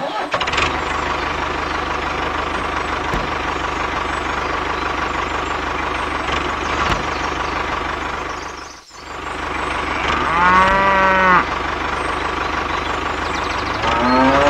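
Tractor engine running steadily, fading out briefly about nine seconds in, with a cow mooing once for about a second and a half about ten seconds in.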